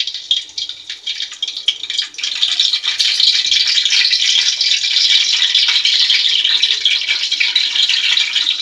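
Curry leaves sizzling in hot oil, a dense crackle that builds about two seconds in and then keeps up.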